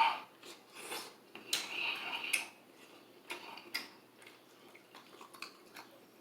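Close-miked eating of a sauced rotisserie chicken: wet chewing, smacking and pulling at the meat, with scattered sharp clicks and a few short noisy bursts, the longest about one and a half to two and a half seconds in.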